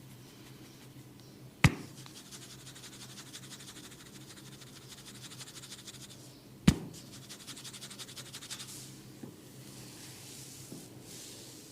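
Head massage on hair and scalp: two sharp impacts about five seconds apart. Each is followed by a few seconds of rapid fine scratching, like a comb or fingertips working through the hair. Softer rubbing follows.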